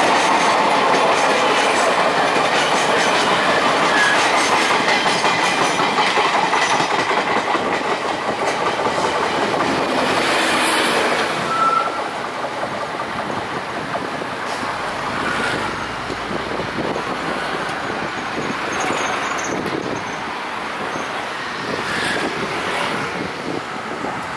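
Rake of Taiwan Railways passenger coaches rolling past on steel wheels with a steady rattling clatter over the track, growing quieter about halfway as the last coach moves away. A brief high wheel squeal sounds near the middle.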